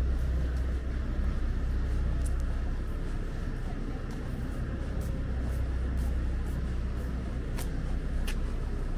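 Night street ambience: a steady low rumble of distant traffic and outdoor air, with a few light clicks and two sharper clicks near the end.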